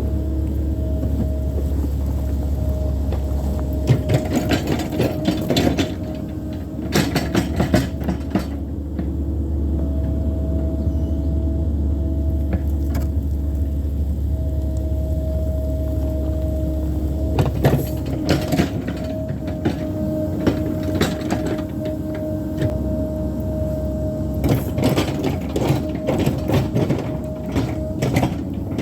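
Mini excavator's engine running steadily with a steady whine, broken several times by bursts of clanking and knocking as the machine works.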